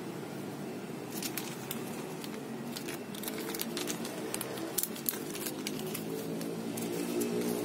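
Small clear plastic parts bag crinkling and small metal toggle-switch parts clicking as they are handled, a string of short sharp crackles and clicks that starts about a second in, over a steady low background hum.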